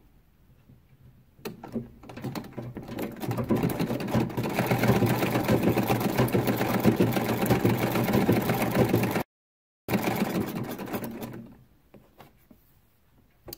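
Antique Singer treadle sewing machine stitching a strip of fabric. It starts slowly, builds to a steady fast rattle, and slows to a stop about eleven seconds in. The roughly 110-year-old machine is plainly still in working order. A brief dropout in the recording comes about nine seconds in.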